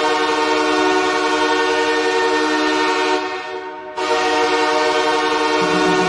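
Los Angeles Kings arena goal horn sounding in long, steady, reverberant blasts. The first blast cuts off about three seconds in and fades out in an echoing tail, and a second blast starts about a second later. Near the end a low beat comes in underneath.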